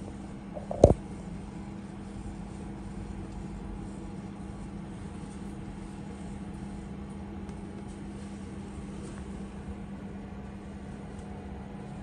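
Steady low hum on one pitch, with a single sharp knock about a second in.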